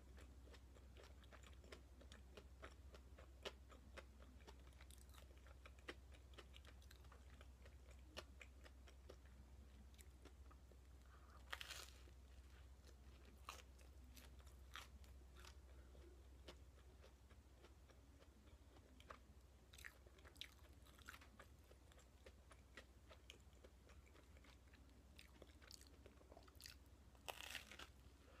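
Close-up chewing of potato salad toast: a run of small wet mouth clicks, with louder crunchy bites of the toast about twelve seconds in and again near the end.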